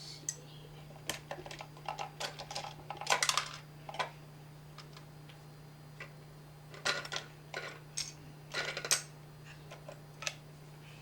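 Plastic LEGO pieces of a brick-built candy dispenser clicking and knocking as the machine is handled, in short irregular clusters, over a faint steady low hum.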